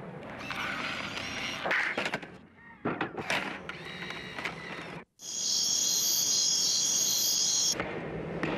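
Clicks and short mechanical whirring of a professional video camera being handled: its power switch and cassette compartment. After a brief dropout, a steady high-pitched whine holds for about two and a half seconds and cuts off suddenly.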